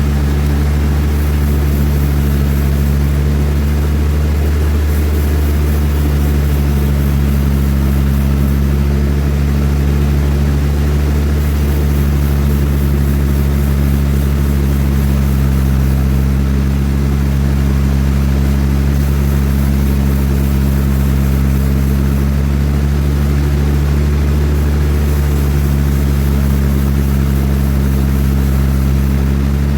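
Large sawmill machinery running steadily: a constant low hum with even overtones, holding the same pitch and loudness throughout.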